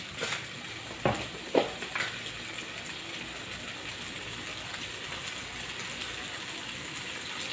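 Shredded chicken in sauce sizzling steadily in a frying pan over a gas flame, with a few light knocks in the first two seconds.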